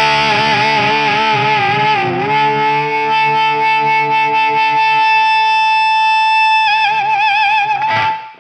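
Distorted electric guitar played through a Mojotone British 800 kit tube amp, a JCM 800-style clone: a couple of bent notes with wide vibrato, then one note held for about four seconds, shaken with vibrato again before it is cut off sharply near the end.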